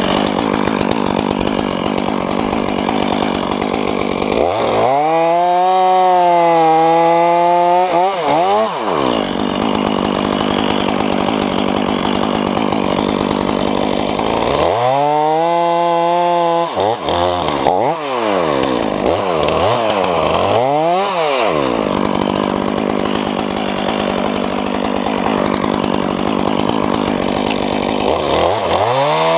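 Chainsaw running steadily, its pitch rising and falling several times as it is revved.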